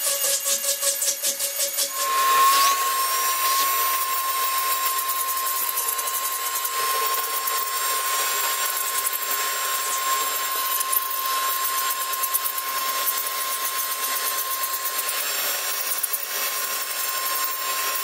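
A handheld power tool rasps into foam for about two seconds. Then a vacuum cleaner runs steadily with a high whine, its hose held close to the carving to suck up foam debris.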